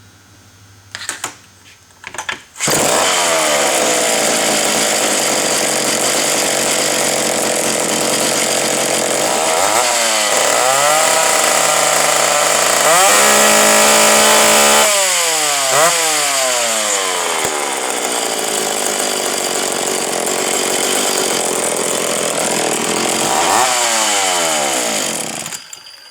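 Ported McCulloch Mac 10-10 two-stroke chainsaw with a tuned exhaust. It starts about two and a half seconds in and runs loud, revved up and down several times and held at high revs for a couple of seconds in the middle. It cuts off near the end.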